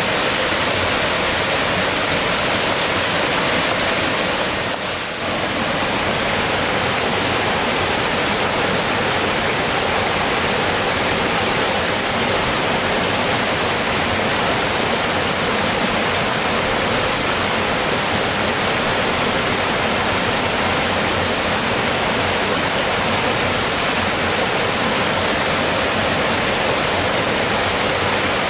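Small waterfall cascading over rocks into a stream, a steady, loud rushing that dips briefly about five seconds in.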